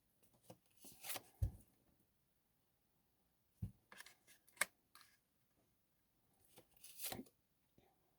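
Tarot cards being handled on a table: a few faint, short rustles and taps spread over several seconds, with quiet between them.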